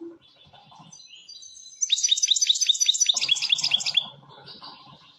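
European goldfinch singing: soft high twittering, then from about two seconds in a loud, rapid trill of repeated notes, about seven a second, lasting about two seconds before it drops back to twittering.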